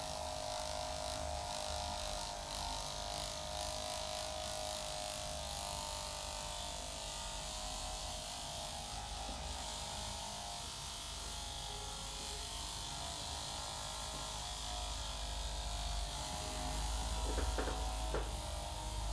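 A small electric motor buzzing steadily, with a few faint clicks near the end.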